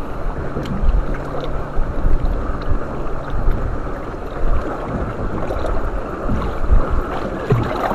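Water lapping and gurgling against a small boat's hull with wind buffeting the microphone, a steady rushing noise with a few low knocks.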